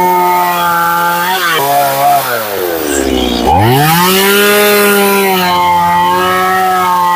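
Stihl two-stroke chainsaw cutting into a pine log at high revs. About three seconds in the throttle is let off and the engine drops to idle, then it revs back up and carries on cutting.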